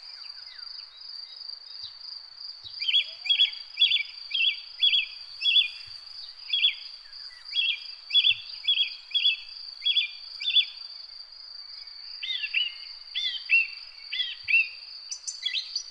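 Garden ambience: a steady, high insect trill runs under a bird calling a series of sharp, evenly repeated chirps, about two a second. About twelve seconds in, these give way to a different set of short curving whistled notes.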